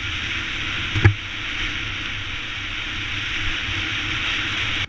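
A 2014 Yamaha XT250 single-cylinder dual-sport motorcycle under way: a steady rush of wind and road noise over the low drone of the engine. A single sharp knock sounds about a second in.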